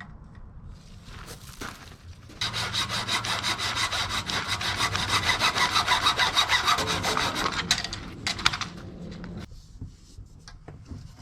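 A saw cutting through a length of drain pipe in quick, even strokes, starting about two seconds in and stopping about seven seconds later.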